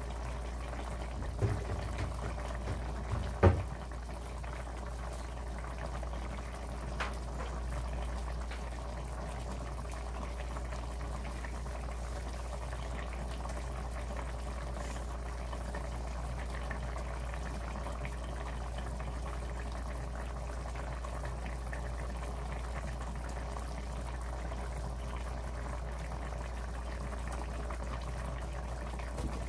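Red chili-sauce chicken stew simmering in a stainless steel pot, a steady bubbling over a low hum. A few clicks and one sharp knock come in the first few seconds.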